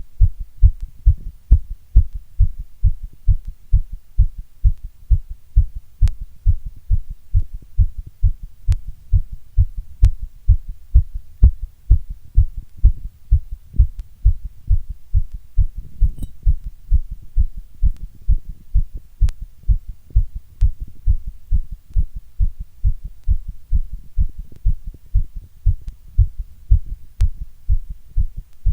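A strong human heartbeat: a steady, regular run of low thumps, with a few faint clicks now and then.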